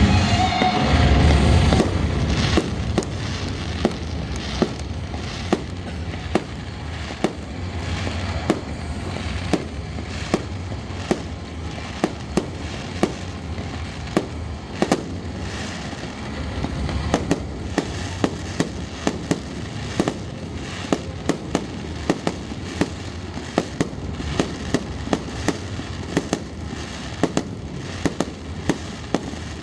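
Fireworks display: a steady stream of sharp bangs and crackles over deep booming shell bursts, loudest in the first two seconds.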